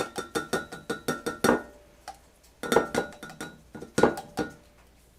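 Spoon clinking against a glass cup as fajita seasoning is spooned into the water and worked in: a quick run of sharp ringing clinks, about six a second, then two shorter groups of clinks about three and four seconds in.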